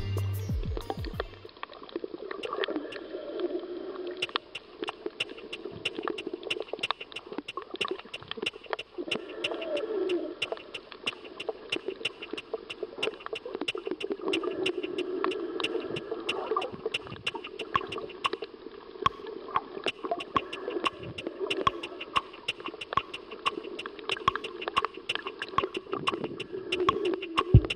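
Underwater sound on a coral reef: an irregular crackle of many sharp clicks over a shifting, low water noise.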